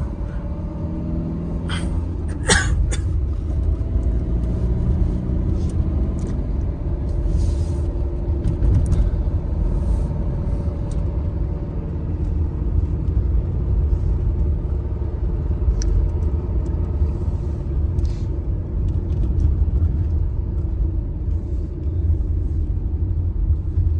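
Steady low rumble of a car driving on the open road, heard from inside the cabin: tyre and engine noise, with a few faint brief ticks.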